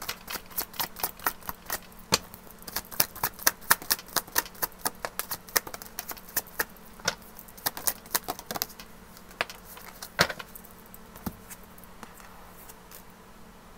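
A tarot deck being handled by hand: a quick run of sharp card clicks, several a second, as the cards are shuffled, thinning to a few single taps about nine seconds in, then stopping.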